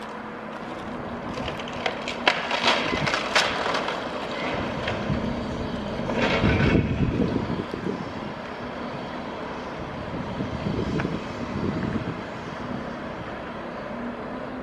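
A demolition excavator pulling down a concrete apartment block: a diesel engine runs steadily under the clatter and crash of breaking concrete and falling debris. The heaviest crash comes about six seconds in, with more rumbling near the end.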